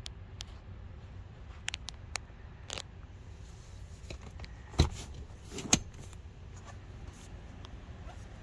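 Handling noise inside a car's rear seat area: scattered small clicks and two louder knocks, about five and six seconds in, over a low steady hum.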